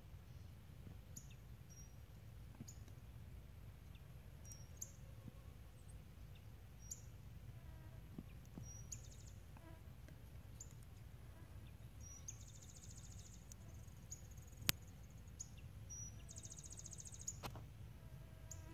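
Faint outdoor ambience with a low steady rumble. Small birds give short high chirps every second or two and twice a rapid trill lasting about a second. Near the end there is one sharp click.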